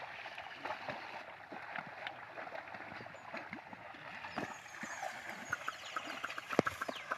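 Water and mud sloshing and splashing as a pair of bullocks drag a wooden levelling board through a flooded paddy field, with a steady wash of sound broken by many small splashes and clicks.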